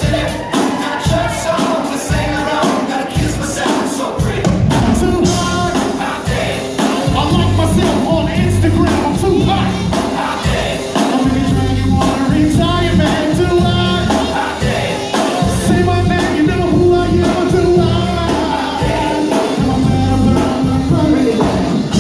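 Live band playing upbeat funk-pop with a steady drum beat, bass and guitar, while a man sings into a handheld microphone.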